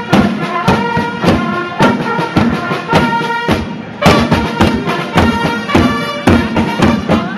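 Marching drums beating a steady rhythm, about two strokes a second, under a wind instrument playing held notes: live procession music.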